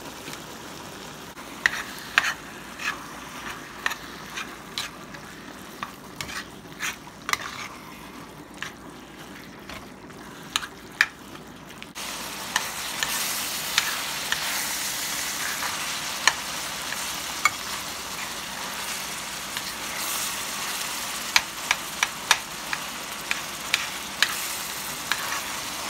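Ground beef with bell peppers and onions sizzling in a pan as a metal spoon stirs and scrapes it, with sharp clicks of the spoon against the pan. About twelve seconds in the sizzle gets suddenly louder and stays so as the browned meat is stirred.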